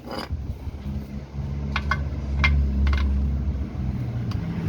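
Low rumble of a vehicle engine nearby, swelling in the middle and easing off, with a few light sharp metal clicks of hand tools.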